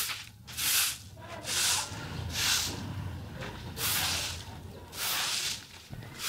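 Long-handled bristle broom sweeping grit across a concrete yard: about six swishing strokes, roughly one a second.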